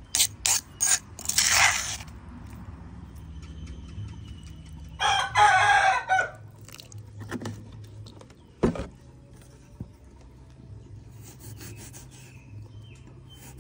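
A rooster crowing once, about five seconds in, a single call lasting over a second. Before it come a quick run of sharp clicks and clatter, and a single knock follows a few seconds later.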